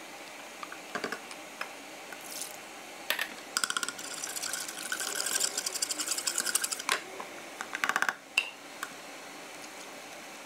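Whisk beating an egg in a plastic mixing bowl: a fast run of clicks as the whisk strikes the bowl for about three seconds, then a shorter burst of clicks a second later.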